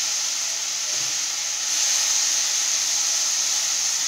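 Hot oil sizzling steadily in a nonstick wok as split lentils (dal) fry in it with mustard seeds and a dried red chilli: the tempering stage of upma.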